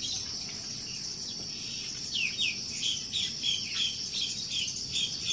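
Steady high-pitched drone of insects trilling. From about two seconds in, a bird calls over it with a quick series of short chirps, about three a second, the first two sliding downward.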